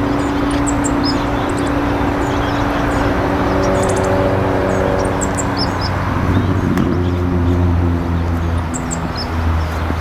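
Short high chirps of small birds scattered through a steady background of outdoor noise and a low, engine-like hum, which shifts pitch about six and a half seconds in.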